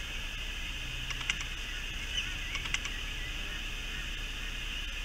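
A steady high-pitched outdoor drone, with a few short sharp clicks about a second in and again around two and a half seconds in.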